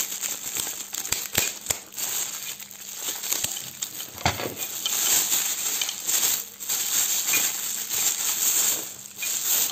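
Clear plastic wrapping crinkling and rustling as gloved hands unwrap an oxygen cylinder's pressure gauge and regulator knob, with many small sharp clicks.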